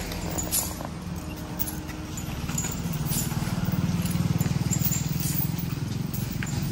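An elephant's iron leg chains clinking in short, scattered clicks as he walks on paving, over a low steady rumble that grows louder about halfway through.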